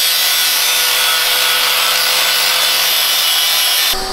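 Angle grinder with a sanding disc running against a steel suspension arm: a steady motor whine under a loud high hiss. It cuts off abruptly near the end.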